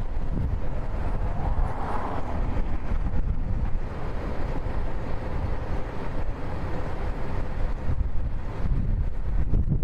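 Wind buffeting the microphone outdoors: a low rumble that rises and falls in gusts.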